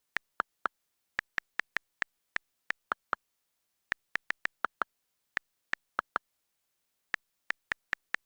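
Short, sharp clicks in irregular clusters, about two dozen of them, with dead silence between.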